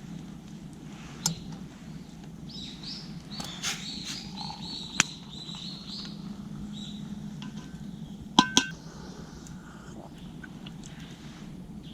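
Small birds calling in a run of short, repeated chirps, with a few sharp metallic clinks from metal camp cookware, two of them in quick succession about two-thirds of the way through.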